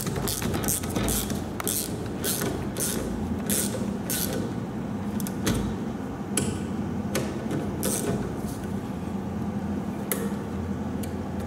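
1/4-inch Wera Zyklop fine-tooth ratchet with a hex bit, its pawl clicking in short zips on each back-swing as the parking brake actuator's bolts are run into the caliper. The strokes come two to three a second at first, then thin out after about four seconds.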